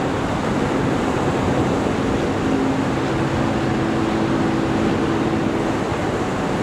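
Steady rush of wind and water on the deck of a ship under way, with a faint low hum from the ship coming in for a few seconds partway through.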